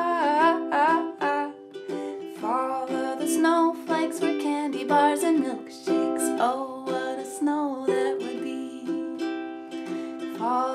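A woman singing a children's song while strumming a ukulele.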